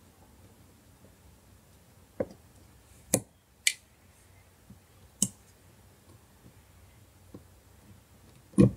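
Scattered sharp clicks and taps of small parts and tools being handled on an opened smartphone's frame, about six in all, with the loudest near the end.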